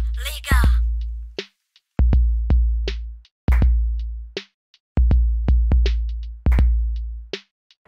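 Instrumental hip-hop beat from a drum machine, with no vocals: deep bass-drum hits that die away over about a second, coming roughly every second and a half, and sharp snare and hi-hat clicks between them.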